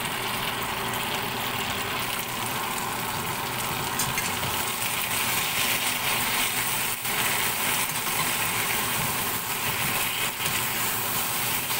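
Carrots and red bell pepper sizzling in sauce in a wok, with a metal spatula scraping and stirring through them, busier from about halfway.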